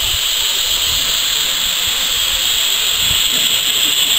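Small steam tank locomotive hissing steadily as it vents steam while standing at the platform.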